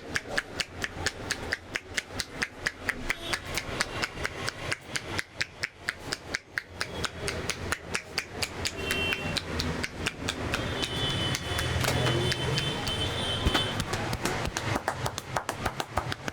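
Barber's hands rapidly striking a person's head in a percussive Indian head massage, an even patter of about five slaps a second. For a few seconds in the middle the strikes run together into a denser rubbing patter.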